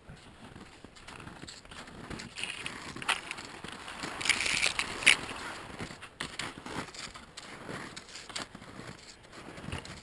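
Skis crunching and swishing through snow that does not hold a firm crust, with many small sharp crackles, loudest about four to five seconds in.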